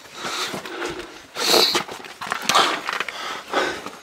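A person breathing hard, with heavy breaths about once a second close to the microphone, in a narrow stone tunnel.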